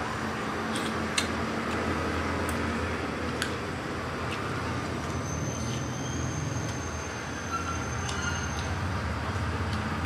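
A steel spoon clicks lightly a few times against a steel plate and bowl over a steady low background rumble.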